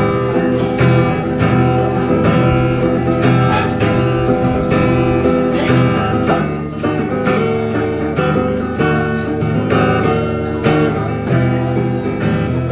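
Acoustic guitar strummed in a steady rhythm, an instrumental introduction with no singing.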